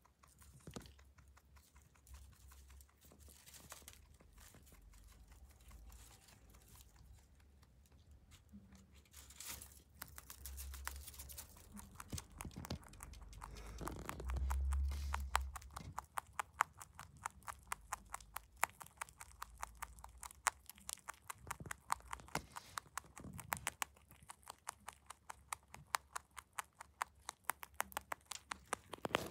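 Netherland dwarf rabbit chewing hay close to the microphone: rapid, regular crisp crunches that grow steady and distinct through the second half. A low rumble, the loudest sound, comes about halfway through.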